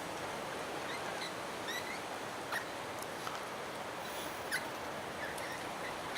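Scattered short bird chirps over a steady outdoor hiss, with a couple of brief sharp clicks.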